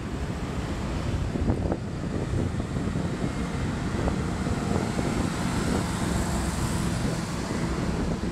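Steady wind noise on the microphone of a camera moving along a bicycle path, over the sound of road traffic passing alongside.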